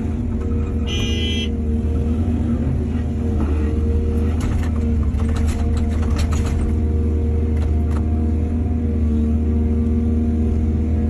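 Heavy diesel earthmoving machinery running steadily with a deep, pitched rumble. There is a brief high-pitched tone about a second in and a run of short clatters in the middle.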